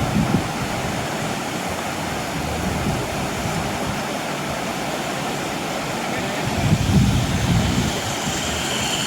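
Steady rushing of the Lower Düden Waterfall, the river pouring over the cliff edge into the sea. A low rumble swells about seven seconds in, and a thin high tone comes in near the end.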